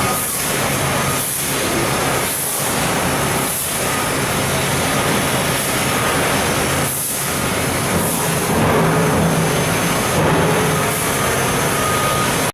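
TRUMPF TruLaser 3030 CNC laser cutting machine running: a loud, steady rushing noise over a low hum, with brief dips about once a second in the first few seconds and a few more later.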